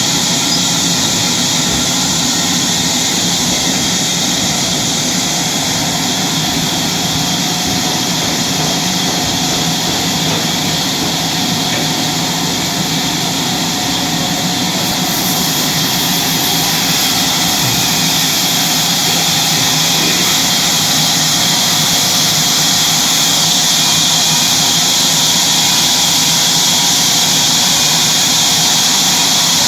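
Sawmill machinery running steadily: a loud, even hum and hiss with steady tones. About halfway through, the hiss turns brighter, and it grows slightly louder after that.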